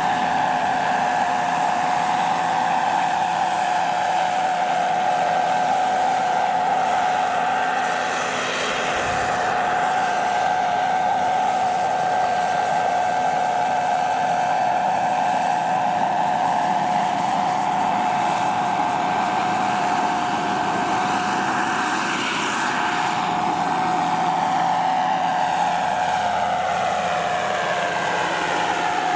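Jet Cat PHT3 turboshaft turbine of a scale EC 145 model helicopter running with a steady high whine, together with the rush of its 1.85 m main rotor, as the model hovers and flies. Near the end the sound sweeps as the helicopter flies by.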